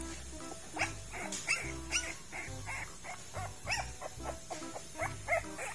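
A very young Thai Ridgeback puppy crying in a rapid series of short, high cries that rise and fall in pitch, about three a second, growing louder after the first second.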